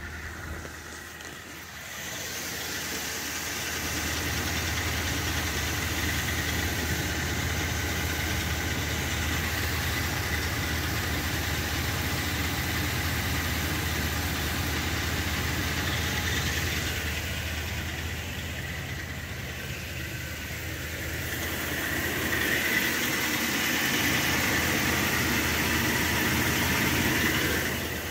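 Brand-new engine of a Ford pickup idling, with a steady high whine over the low hum that the owner wonders is just the engine fan; it hardly changes with engine speed. The whine is loudest for several seconds near the end.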